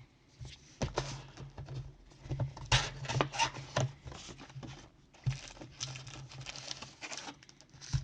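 Hands opening a cardboard trading-card hobby box and handling the packs inside: rustling and crinkling, with a run of sharp taps and clacks as the packs are set down and knocked about.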